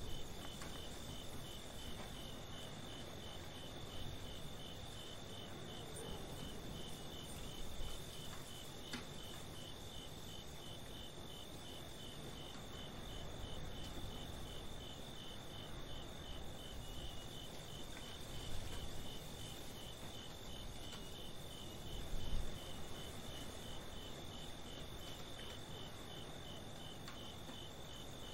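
Crickets chirping in a steady, even pulse over a low background rumble, with a couple of soft low thuds about two-thirds of the way through.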